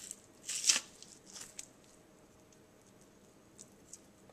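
The membrane (silver skin) being peeled by hand from the bone side of a raw rack of pork spare ribs. It makes three short tearing rustles in the first second and a half, the loudest about half a second in, then only faint handling.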